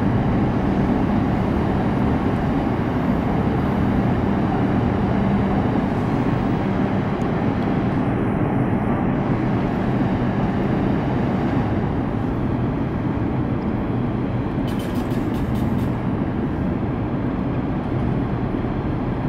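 New York City subway train running along the track: a steady rumble of wheels on rail with a low motor hum.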